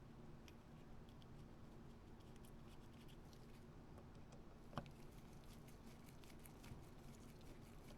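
Near silence: faint light clicks of small carburettor parts being handled during reassembly, with one sharper click a little under five seconds in, over a faint steady hum.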